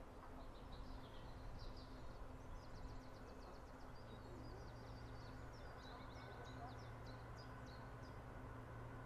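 A small songbird singing quick twittering trills over a faint, steady low drone from an approaching Class 66 diesel locomotive's two-stroke V12 engine, the drone growing stronger about halfway through.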